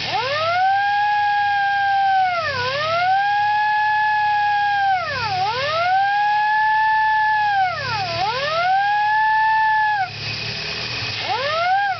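Old wolf whistle horn sounding a siren-like wail: four long whistles that each rise, hold a steady pitch and dip before the next. They stop about ten seconds in, and quick rising whistles start near the end.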